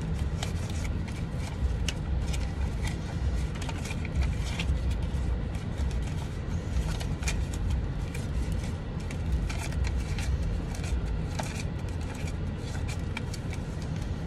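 Paper banknotes being counted by hand, with many small rustles and flicks, over a steady low rumble from the car.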